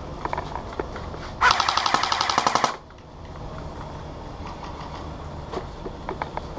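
Airsoft gun firing one full-auto burst of a little over a second about one and a half seconds in, a fast, even rattle of shots. Scattered faint single shots or BB hits click before and after it.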